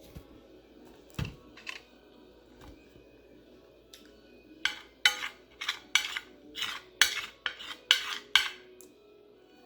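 Cutlery scraping and clinking against a dish during a meal: one knock about a second in, then a quick run of about nine sharp scrapes, roughly two a second, in the second half.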